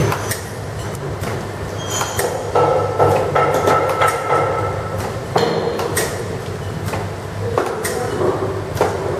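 Drip coffee bag packaging machine running: a steady mechanical clatter with repeated sharp clicks and knocks, about once or twice a second, over a low hum as it forms, seals and cuts the bags.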